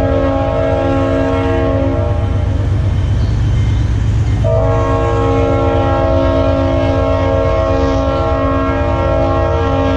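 Train horn sounding a long chord blast that stops about two seconds in, then a second long blast from about four and a half seconds in, over the low steady rumble of the slow-moving train.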